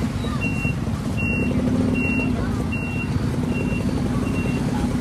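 A truck's electronic warning beeper sounding a short, high beep about every three-quarters of a second, six times, over the steady low rumble of the truck's engine running as it moves slowly.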